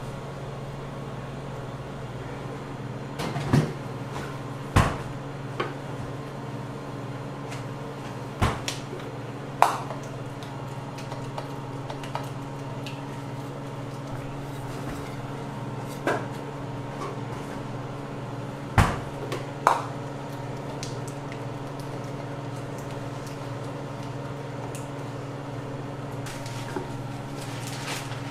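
Metal cake-decorating tools, palette knives, turntable and steel bowls, clinking and knocking now and then: about eight sharp, irregular knocks, mostly in the first twenty seconds, over a steady low hum.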